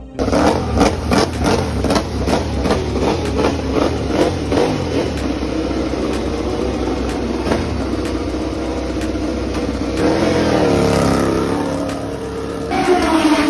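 Ducati Desmosedici MotoGP bike's V4 engine running at the pit box with a rapid pulsing beat, then revving with a rise in pitch near the end as the bike pulls away down the pit lane.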